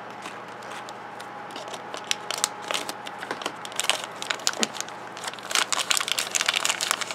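Crinkly red plastic wrapper around a small toy figure being crumpled and pulled open by hand: irregular crackles, sparse at first and busier in the second half.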